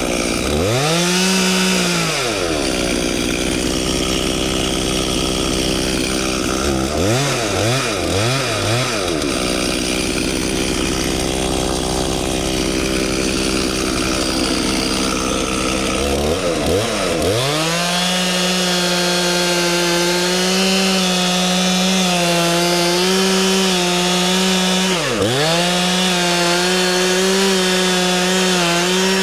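Two-stroke Stihl chainsaw run at high revs, cutting into a tree. The revs drop and climb back a few times, with a quick run of throttle blips about a quarter of the way in.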